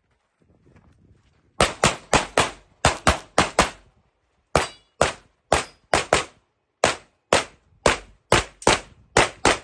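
Rapid semi-automatic gunfire on a practical shooting stage: about twenty sharp shots, mostly in quick pairs a fraction of a second apart, in strings broken by short pauses.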